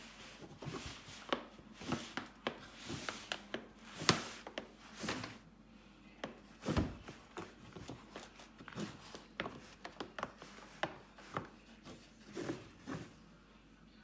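A puppy rummaging in a canvas basket of dog toys: irregular rustling, rubbing and light knocks as plush and rubber toys are pushed about.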